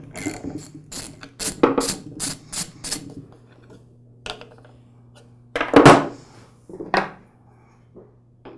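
Ratchet wrench clicking in a quick run, about three clicks a second, as the bolt holding the cooling fan on an oilless air compressor pump is loosened. About six seconds in comes a loud clatter, followed by a single knock about a second later.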